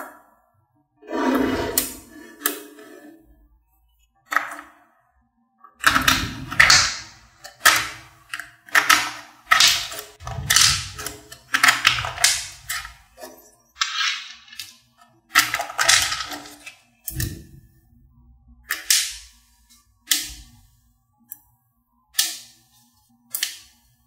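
Small metal magnet balls clicking and clacking as blocks of them are pulled apart and snapped together, in a string of sharp clicks and short rattles about once a second with brief pauses between.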